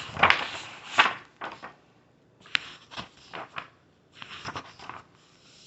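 Handling noise: a string of irregular rustles, scrapes and light knocks, with a few sharp clicks.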